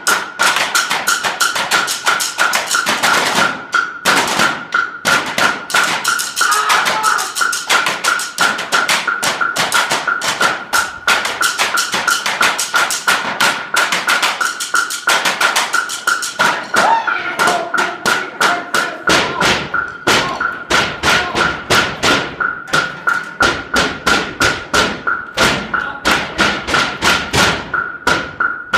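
Several drumsticks tapping rhythmic patterns on a hard tile floor as a percussion ensemble, dense and loud, with a steady high tone underneath. About two-thirds of the way through the strokes settle into an even beat of roughly two to three a second with deeper thumps.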